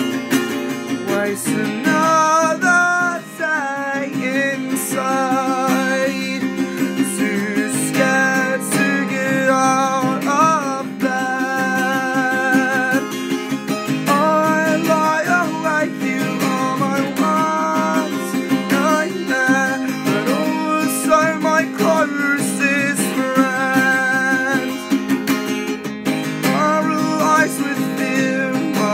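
Music: strummed acoustic guitar with a wavering melody line over it.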